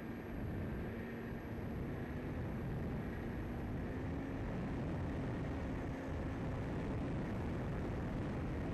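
Radio-controlled airplane in flight, heard from its onboard camera: steady rushing wind over a droning motor and propeller.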